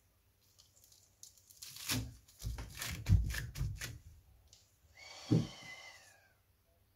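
Hook-and-loop sanding disc being pressed onto and pulled at on a drill press's backing pad: a run of crackling, ripping sounds lasting about two seconds, then a short squeak with a knock a second or so later.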